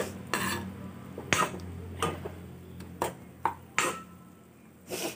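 Metal spatula clinking and scraping against a kadai as greens are stirred, about seven irregular knocks.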